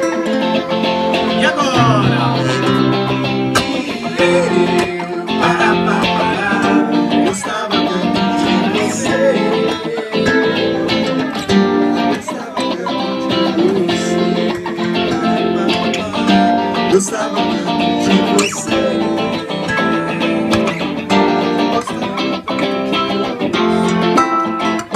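Live band playing through PA speakers, with strummed acoustic and electric guitars; the song ends right at the close.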